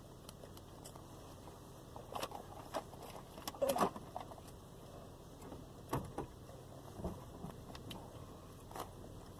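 Scattered light clicks and knocks of small objects being handled, the loudest a short cluster about four seconds in, over quiet room tone.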